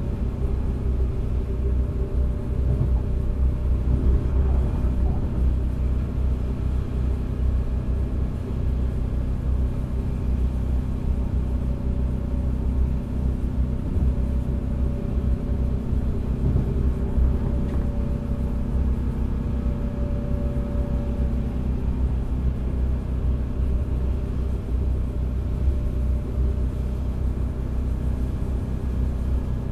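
Cabin sound of a DB class 642 Desiro diesel multiple unit under way at speed: a steady low drone from its underfloor diesel engines mixed with the rumble of the wheels on the track. A faint whine comes and goes in the middle.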